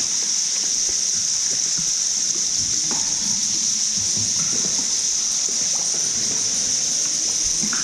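Steady rushing water, like a waterfall or fast stream, heard as an even high-pitched hiss that holds without change, with faint small splashes underneath.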